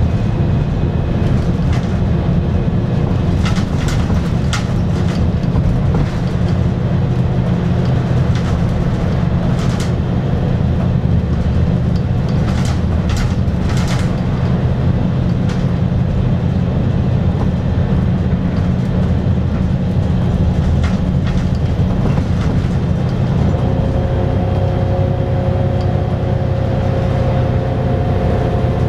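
Cabin noise inside a moving Volvo B7R 8700 city bus: steady diesel engine drone and road rumble, with scattered clicks and rattles for the first half. A steady whine joins in about two-thirds of the way through.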